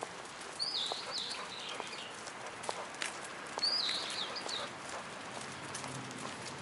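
A bird calling twice, about three seconds apart, each bout a quick run of high chirps. Light ticks and taps of steps on a paved path sound underneath.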